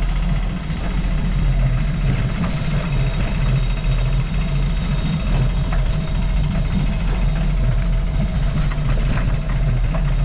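Steady low rumble of wind and road noise on a camera riding along on a bicycle, with a few faint clicks.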